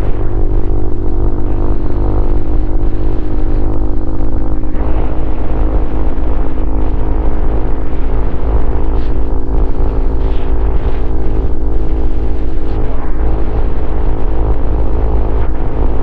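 Honda CRF150L single-cylinder four-stroke engine running through a Norifumi Noctus T5 aftermarket exhaust while riding, holding a fairly steady engine speed, with a strong low rumble of wind on a helmet-mounted microphone underneath.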